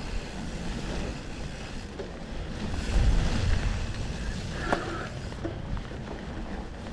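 Mountain bike riding a trail, heard through an action camera's microphone: wind rush on the mic with tyre and trail rumble, louder about three seconds in, and a couple of short knocks near the end.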